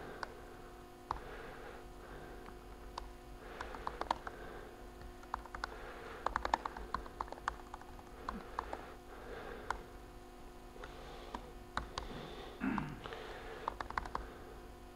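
Typing on a MacBook Pro laptop keyboard: irregular runs of key clicks with short pauses between them, over a steady low hum.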